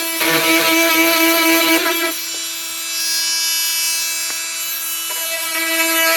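Flex FX4111 cordless oscillating multi-tool running with a steady high buzz as its blade cuts. The buzz is heavy at first, turns lighter and quieter about two seconds in, and bears down again near the end.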